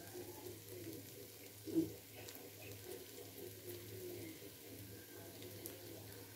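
Onion and tomato masala sizzling faintly in an aluminium pan over a low flame, under a steady low hum, with one brief soft sound about two seconds in.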